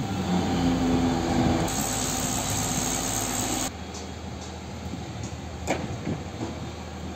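Mobile crane's diesel engine running steadily while hoisting a precast concrete arch segment. The sound drops suddenly in level a little over halfway, and a single sharp knock comes near the end.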